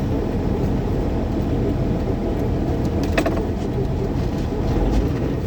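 A semi truck running down the road under a heavy load of lumber, heard from inside the cab as a steady low engine and road rumble. There is one brief click about three seconds in.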